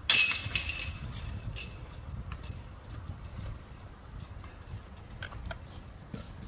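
Putted disc golf disc crashing into the chains of a metal disc golf basket: a loud chain rattle right at the start that jangles on and fades over about a second and a half, followed by a few faint clicks.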